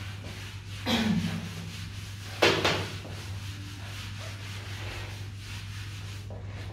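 Whiteboard eraser wiping marker off a whiteboard: a steady scrubbing rub, with a couple of louder, sharper strokes about one and two and a half seconds in.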